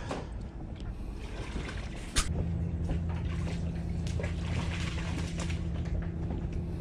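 Water trickling and splashing, then about two seconds in a motor switches on with a click and runs with a steady low hum.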